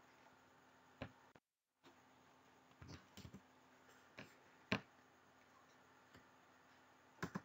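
Near silence: faint room tone with a low steady hum and a few scattered short clicks, the sharpest a little under five seconds in.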